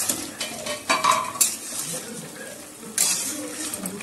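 A spatula stirring a pan of simmering soya chunk and potato curry, scraping and clinking against the metal pan with a few sharp knocks, over the curry's faint sizzle.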